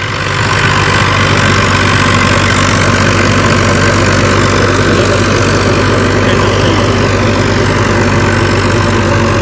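HMT 3511 tractor's diesel engine running steadily while it pulls a 7-foot Punni super seeder through paddy straw stubble, its rotary blades churning the soil. It grows louder over the first half second as it comes past, then holds steady.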